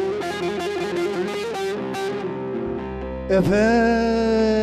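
Bağlama (long-necked Turkish saz) picked in a quick run of notes that then ring out. About three seconds in, a man's voice comes in on one long held sung note with a slight waver.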